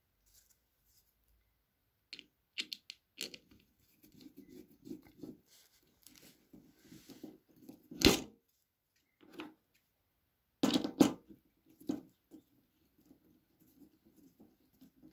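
A small screw being turned by hand with a screwdriver into a plastic bottle cap: intermittent creaking, crunching scrapes as the threads cut into the plastic. Sharp clicks of the screwdriver against the screw, loudest about eight seconds in and again around eleven seconds.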